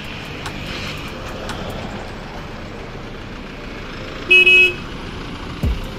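A vehicle horn toots once, briefly, about four seconds in, over steady engine and road noise.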